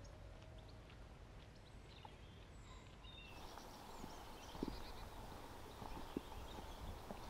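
Faint outdoor ambience of small birds chirping, with a few soft thuds in the second half.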